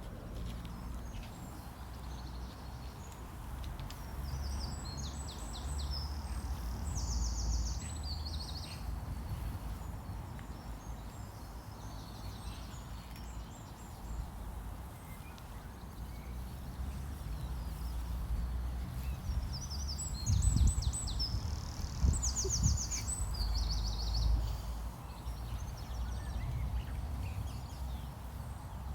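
A songbird singing the same short phrase twice, about fifteen seconds apart: a few quick high notes ending in a fast trill, over a steady low outdoor rumble, with a couple of soft knocks near the second phrase.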